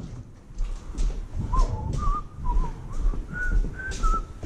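A person whistling a short tune: a string of wavering notes that step up and down in pitch, starting about a second and a half in. Low knocks and handling noise run underneath.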